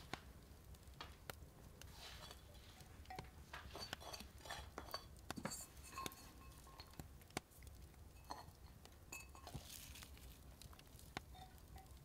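Glazed earthenware bowls and a clay pot clinking and knocking lightly as they are picked up and set down, faint scattered clicks with a few short ringing chinks.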